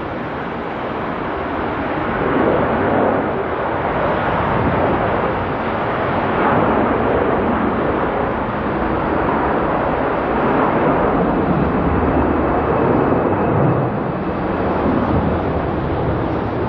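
Airbus A330-300's twin Rolls-Royce Trent 700 turbofans at takeoff thrust: a steady, broad jet roar that swells about two seconds in and then stays loud, with a faint high whine running above it.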